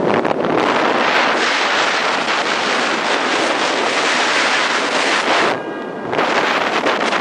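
Wind buffeting the microphone of a camera filming from a moving car, over the car's road noise. The rush drops off briefly about five and a half seconds in, then returns.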